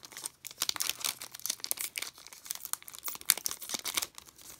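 Crinkling foil wrapper of a trading card pack being handled and opened: a run of irregular crackles, with the sharpest a little past three seconds in.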